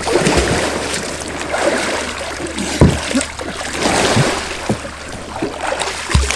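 Water splashing and churning as a capsized sea kayak's paddler sweeps a wooden Greenland paddle through the pool surface during a back deck roll attempt, with a few dull low thumps, the loudest about three seconds in and another near the end.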